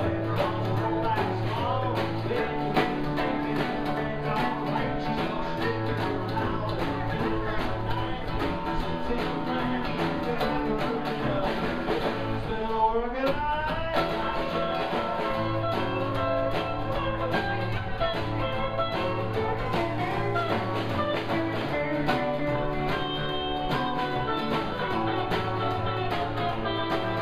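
Live band playing: hollow-body electric guitar, plucked upright double bass, acoustic guitar and drum kit, with a quick rising slide about halfway through.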